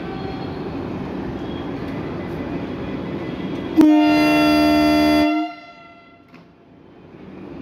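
Vande Bharat Express train set's horn sounding one steady blast of about a second and a half, starting suddenly about four seconds in and cutting off sharply. It is the signal that the train is about to depart. Before it there is a steady background hum.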